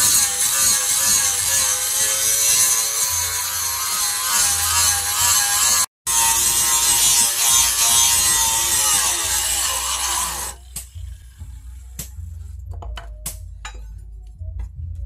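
Electric angle grinder with an abrasive cut-off disc cutting through steel bar, its motor whine wavering under load. About ten seconds in the pitch sinks as the grinder winds down, and a few light knocks follow as the cut steel is handled on the wooden bench.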